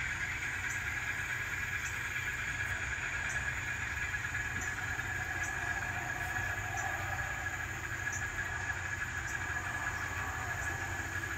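ESU LokSound sound decoder in an N scale Alco C420 model playing its Alco diesel engine sound at low throttle, a steady drone from the model's small speaker as the locomotive creeps along the track.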